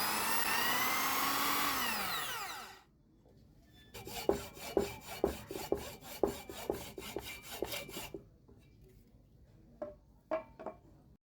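A small electric power tool runs with a whine and winds down to a stop a little under three seconds in. Quick, regular hand-saw strokes on wood follow for about four seconds as the back of a wooden lure body is slit for its wire. A few light taps come near the end.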